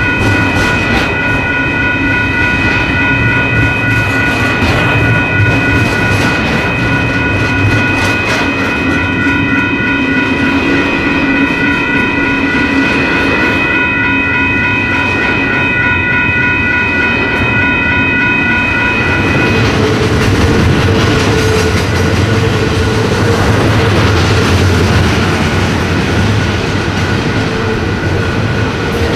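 Double-stack intermodal freight train rolling past close by, its container well cars rumbling and the wheels clattering on the rail. Steady high-pitched tones ring over the rumble for the first two-thirds, then stop, and a lower steady tone follows.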